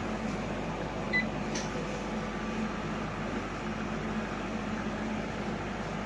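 Vacuum pumps of a Cressington 308R carbon coater running with a steady hum while the bell jar is pumped down. A short high beep about a second in.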